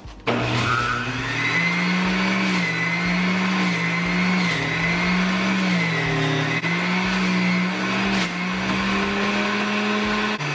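Electric centrifugal juicer switched on and running steadily while spinach is pushed down its feed chute. Its pitch rises over the first second or so as it spins up, then dips and recovers a few times.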